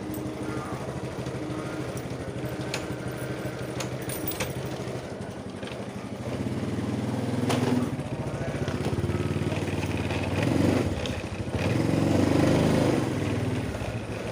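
An engine running steadily, getting louder from about six seconds in, with a few faint clicks.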